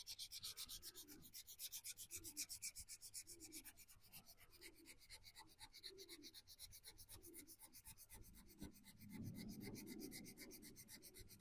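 Faint hand sanding of high-build filler primer on a VW T25 van's steel body panel, being rubbed down to take out a ridge line. Back-and-forth strokes about once a second, turning to quicker continuous rubbing near the end.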